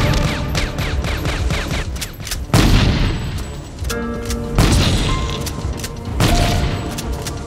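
Movie-soundtrack gunfight: a rapid string of gunshots, then three heavy shotgun blasts about two seconds apart, over a dramatic music score.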